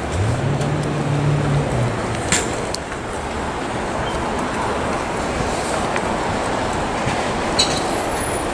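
Street traffic: a steady rush of passing vehicles, with one engine's hum rising in the first moments and dropping away about two seconds in.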